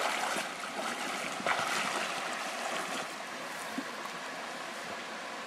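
Shallow river water running steadily over stones, with a single light knock about a second and a half in.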